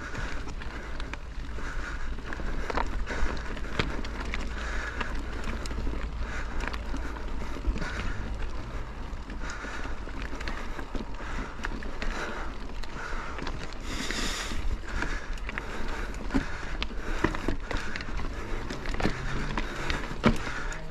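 Mountain bike riding over a rocky trail: tyre rumble with a constant stream of small knocks and rattles from the bike, and wind rumbling on the microphone. A brief louder hiss comes about two-thirds through.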